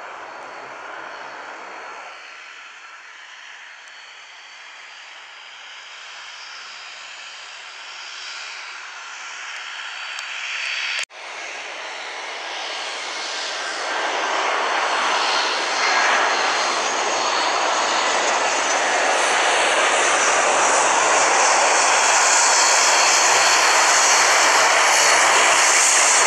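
At first, a Bombardier Dash 8 Q400 turboprop runs on the runway. After a cut, an Airbus A320-family jet airliner comes in to land on its two turbofan engines, growing steadily louder to its loudest as it touches down.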